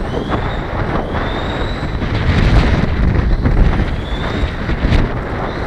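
Heavy wind buffeting on the microphone over the high whine of a Dromida BX4.18 RC buggy's electric motor, rising in pitch about three times as it accelerates.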